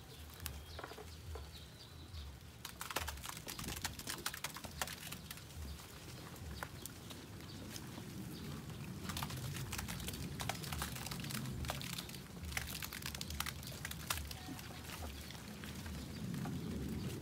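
Weaned black native pigs grunting and milling in their pen, waiting for feed, with scattered sharp clicks and scuffs from trotters and footsteps on gravel.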